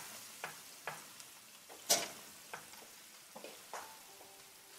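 Sliced mushrooms frying in a pan with a low, steady sizzle, with scattered clicks and taps of a utensil stirring them and one sharper click about two seconds in.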